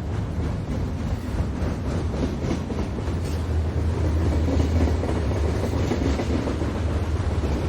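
Freight train rolling past, a steady low rumble with wheels clacking over the rails.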